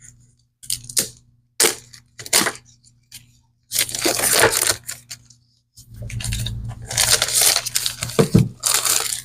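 Packaging on a set of postcards being crinkled and torn open, in several irregular rustling bursts with a longer stretch in the middle and another near the end.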